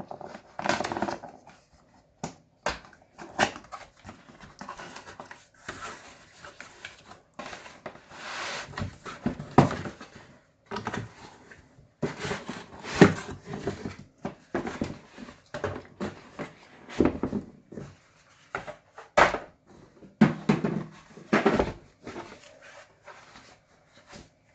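Laptop packaging being handled and opened: irregular rustles, scrapes and sharp knocks of box and wrapping material, with short pauses between them.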